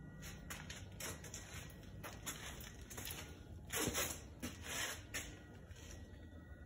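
A series of short rustling, scuffing noises from the phone being handled and moved while filming, loudest about four seconds in, over a low steady hum.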